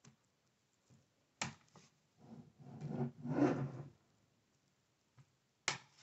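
Plastic bottom cover of a Lenovo IdeaPad 1i laptop being pried off by hand: a sharp click about a second and a half in and another near the end as its retaining clips snap loose, with plastic rubbing and scraping between them.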